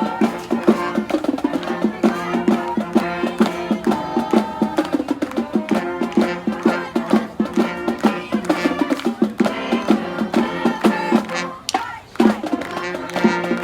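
High school marching band playing its fight song: brass over a steady drum beat, with a brief break near the end before the band comes back in.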